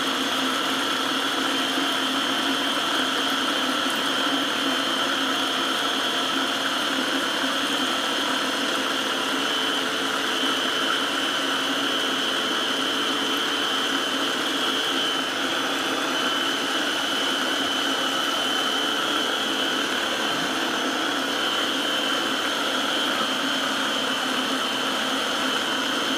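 Small electric food processor running steadily with an even motor hum and a steady high whine, whipping garlic, egg white and lemon into an emulsion as oil is drizzled in.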